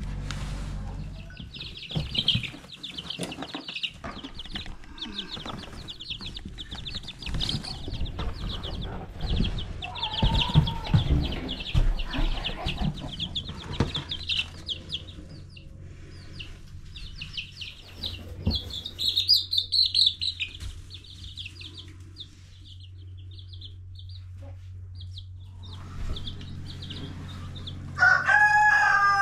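Young chicks peeping rapidly and continuously, thinning out after the middle, mixed with knocks and rustles as a plastic waterer and feeder are set down in wood shavings. Near the end comes a single louder, lower call that falls in pitch.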